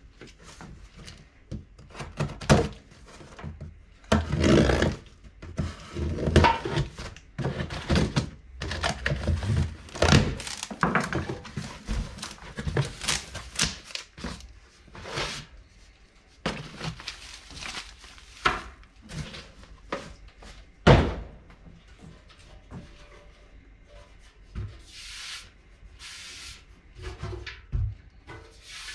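A cardboard box being opened and unpacked: flaps and packing rustling and scraping, with irregular thunks and knocks as the box and a steel motorcycle fuel tank are handled. The sharpest knock comes about two thirds of the way through.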